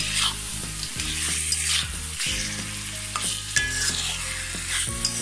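Hilsa fish heads and tails sizzling in oily spice paste in a metal karahi, stirred and turned with a metal spatula that scrapes the pan in repeated strokes.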